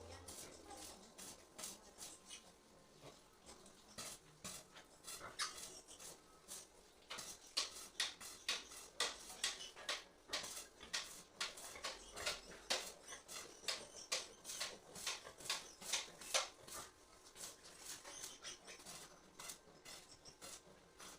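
Irregular run of sharp taps, several a second, louder and closer together in the middle.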